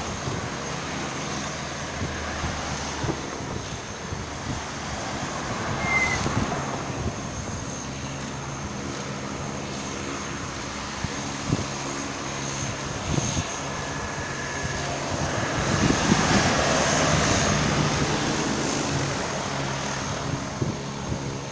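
Small high-wing propeller plane on its landing approach, its engines droning with a steady hum that grows louder and peaks about three quarters of the way through as it passes low overhead, then eases off.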